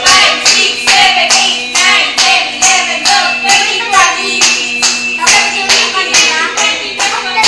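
A group clapping hands in a steady rhythm, about two claps a second, with voices singing along.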